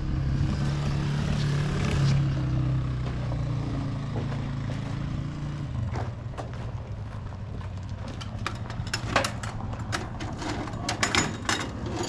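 Tractor engine running steadily, a little louder in the first half. From about eight seconds in, a run of sharp clicks and clanks sounds over it.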